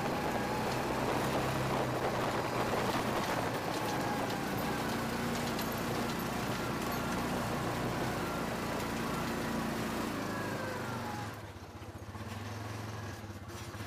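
Side-by-side UTV engine running steadily as the machine drives off-road, easing off and dropping in level about eleven seconds in.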